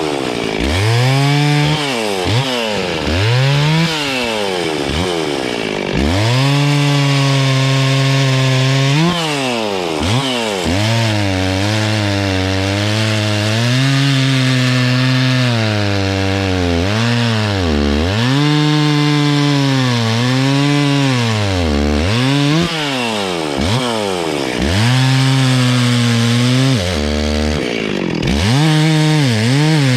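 Two-stroke chainsaw cutting up a downed tree: the engine holds at high revs under load, then drops off and revs back up, again and again through the cuts.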